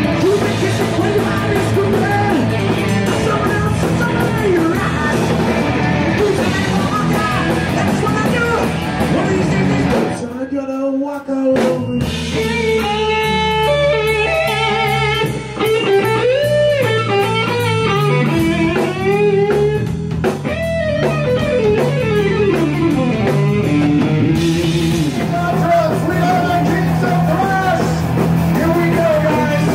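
A thrash metal band playing live: distorted electric guitars, bass and drum kit. About ten seconds in the band drops out briefly, then comes back under long held lead notes that waver and bend in pitch, before the full band returns near the end.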